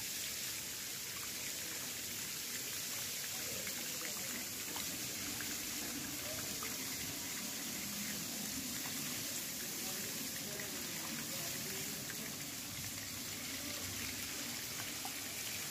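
Steady hiss of running water trickling into a fish-fry tank, with scattered small ticks of splashing.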